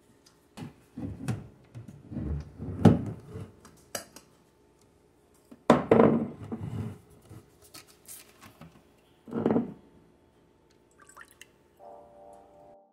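Glass food containers set down and handled with knocks and clinks, then juice poured from a plastic jug into a glass bowl, splashing in bursts.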